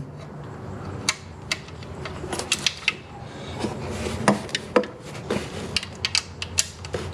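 Scattered light clicks and knocks of metal tools and engine parts being handled, irregular and sharp, a few louder taps about one, four and a half, and five seconds in.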